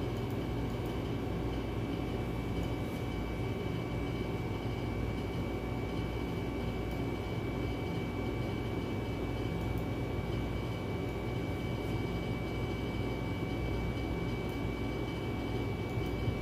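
Steady mechanical hum with a thin high whine over it, unchanging throughout.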